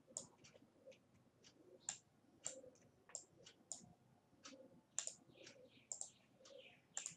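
Faint computer mouse clicks, a few a second at irregular spacing, as boxes are created, cloned and moved in 3D modelling software.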